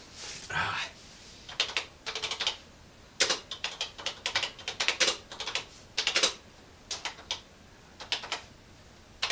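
Typing on a Tandy Color Computer 2 keyboard: irregular runs of key clicks, some keys struck singly and some in quick strings.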